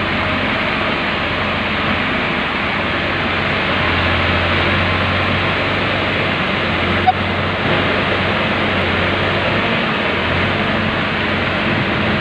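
Excavator diesel engines running steadily under a dense hiss. The low engine hum grows heavier from about four seconds in until about ten seconds. There is one sharp click near the middle.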